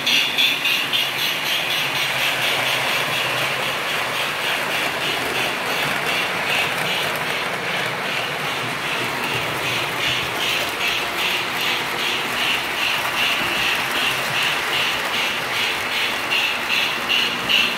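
O scale model train running on the layout's track: a steady electric-motor whir and wheel noise with regular rapid clicking, about three clicks a second, most distinct near the start and end.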